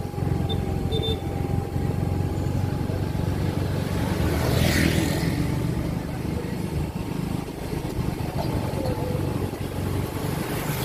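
Motorcycle engine running steadily on a city street, with a short hissing whoosh about halfway through.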